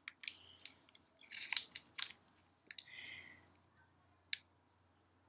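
Clear plastic packaging bag crinkling and rustling as a small USB cable is handled and taken out of it, with light clicks; the loudest crinkles come about one and a half to two seconds in, and a single sharp click near the end.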